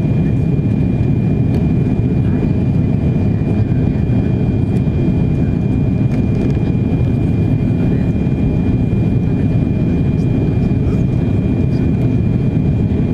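Steady cabin noise inside an Airbus A340-600 descending on approach: a loud low rumble of airflow and its four Rolls-Royce Trent 500 engines, with a thin steady whine above it.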